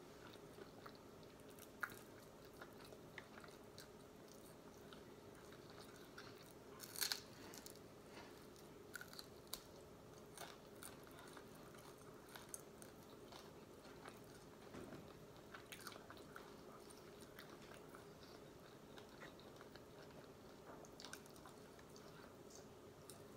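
Faint close-up eating sounds: soft chewing and crunching with scattered small clicks as a cooked crab leg's shell is picked apart, the loudest cluster about seven seconds in. A faint steady hum runs underneath.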